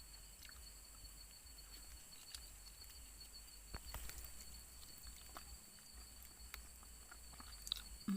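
Crickets chirping in a steady, high-pitched, rapidly pulsing trill, with scattered faint clicks and rustles and a couple of sharper clicks near the end.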